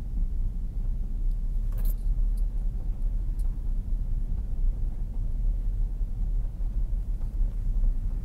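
Steady low rumble of a car's engine and tyres heard from inside the cabin while driving, with a brief click about two seconds in.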